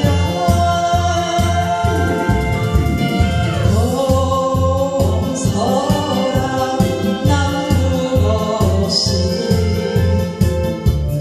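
Korean trot song: a woman singing into a microphone over a backing track with a steady bass beat and keyboard accompaniment.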